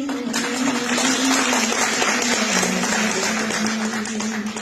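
Audience applauding, many hands clapping together, breaking out about a third of a second in and starting to fade near the end. Under the applause a single low note from the accompaniment is held steadily.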